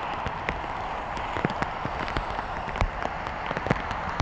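Heavy rain falling on floodwater: a steady hiss with irregular sharp ticks of single drops landing.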